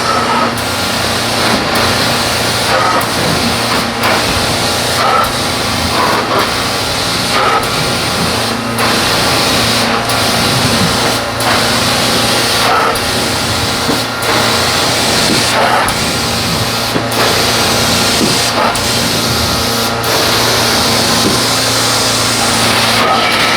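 Carpet extraction wand on a hot-water extraction system running from a van-mounted unit: a steady vacuum rush with a low hum. The hiss swells and dips about once a second as the wand is worked back and forth across wet carpet, spraying hot water and sucking it back up.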